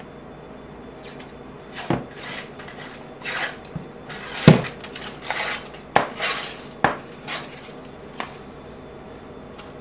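Metal sheet pan clattering as it is handled and set down on the counter: a run of sharp knocks and short scrapes, the loudest knock about four and a half seconds in.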